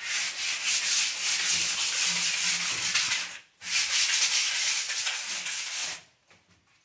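Sandpaper rubbed by hand over a plastered wall in rapid back-and-forth strokes, a dry scratchy hiss. It comes in two long spells with a short pause about halfway, and stops near the end.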